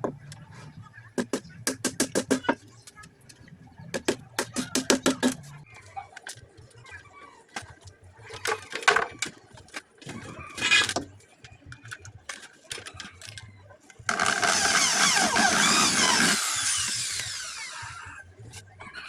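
Workshop tool sounds: two quick series of rhythmic strokes, then scattered knocks. About fourteen seconds in, a power tool runs loudly for about three seconds and then winds down.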